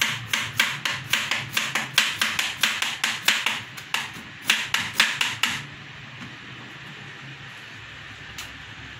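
Kitchen knife chopping a carrot on a plastic cutting board: quick, regular strokes, about four a second, that stop about five and a half seconds in.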